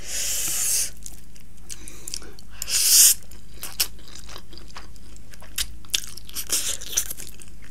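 Close-up mouth sounds of eating Samyang Buldak spicy instant noodles: a slurp at the start and a louder one about three seconds in, then wet chewing with short clicks and smacks.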